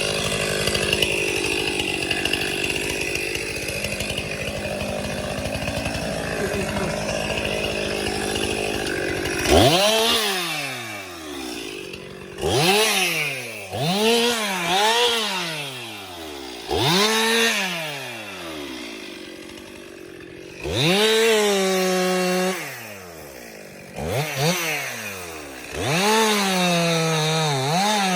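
Chainsaw engine running steadily for about nine seconds, then revved again and again in short throttle bursts, each rising sharply in pitch and falling back, about every one to two seconds.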